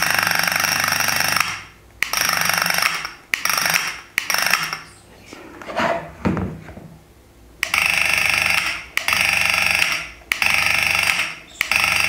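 Homemade electric doorbell, a small 3 V DC motor in a box that rattles and buzzes against a stainless steel cup, ringing in repeated bursts of about a second each time the push switch is pressed. There are about eight presses, with a pause in the middle.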